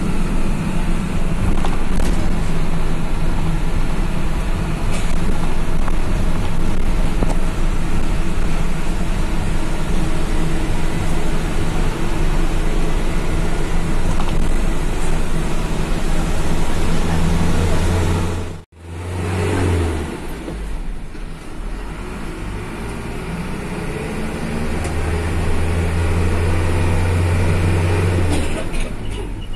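Medium-size intercity bus running along the road: a steady engine drone with road and traffic noise. About two-thirds through the sound drops out for an instant. Afterwards it is a little quieter, and a deep low drone swells in twice.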